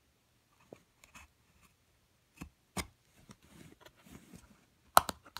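Hands handling a thin wooden cigar box and working a knife at the paper seal across its lid. Scattered taps and knocks on the wood and a stretch of soft scraping lead to one sharp click a little before the end, the loudest sound.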